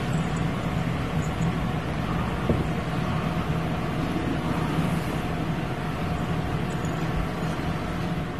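Domestic cat purring: a steady, low rumble.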